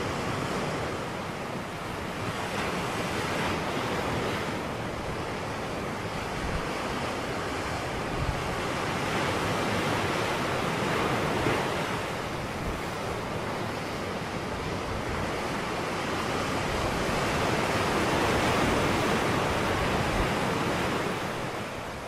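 Ocean surf breaking and washing up onto a sandy beach: a continuous rush of water that swells and eases with the waves, loudest a few seconds before the end.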